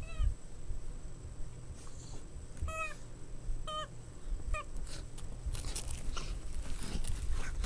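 Boston Terrier puppy giving four short yips spread over the first five seconds, then puppies scuffling and scratching at fabric and carpet.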